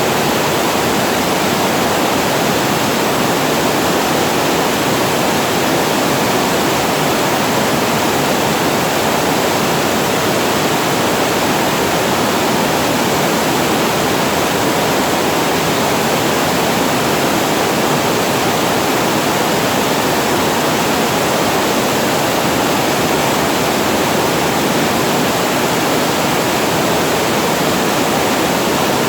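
Water pouring over a reservoir weir and falling below it: a steady, unbroken waterfall rush with no change in level.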